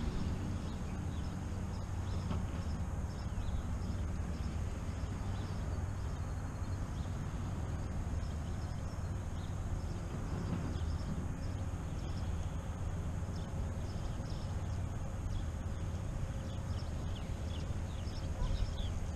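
Outdoor ambience: a steady low rumble of wind on the microphone, with many short chirping animal calls scattered throughout.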